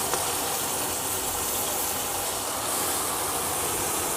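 Oil sizzling steadily in an open pressure cooker, where onions, tomatoes and green chillies are frying under a heap of fresh gurigaku leaves that has just been added.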